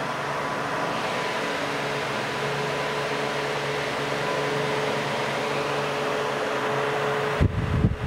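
HolmesAir "The Circulator" HF-30TF box fan running with its grille rotating: a steady rush of air over a steady motor hum. Near the end, irregular low gusts of air buffet the microphone.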